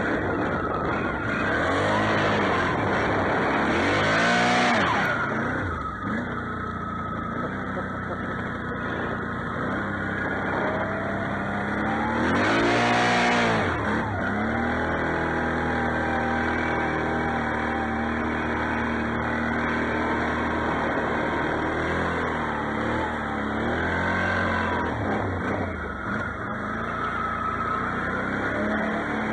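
Can-Am XMR 650 ATV's V-twin engine revving up and down while driving through snow, with hard revs about four seconds in and again around thirteen seconds, then running steadier before more ups and downs near the end.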